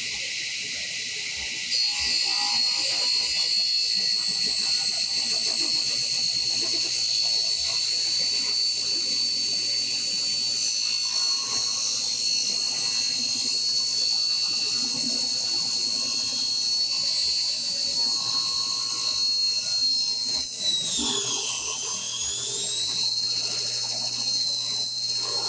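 A 1970s Craftsman contractor table saw with an 80-tooth plywood blade ripping a long board, running with a steady high whine that gets louder as the blade bites in about two seconds in. Near the end the pitch sags and then recovers as the underpowered motor bogs under load, which the operator puts down to the board starting to pinch the blade.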